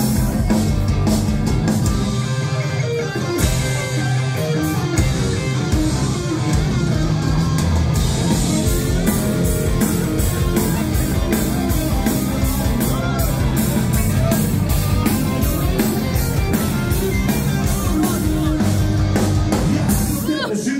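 Live rock band playing with electric guitars, bass guitar and drum kit, keeping a steady beat.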